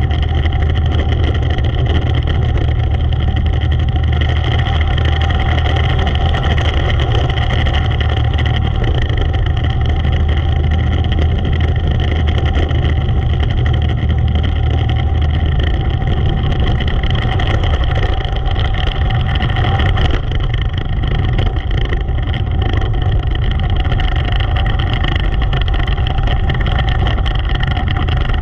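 Engine of a Predator 400-class dirt-track race car, heard from an onboard camera, running hard at racing speed. It holds a steady, loud drone throughout.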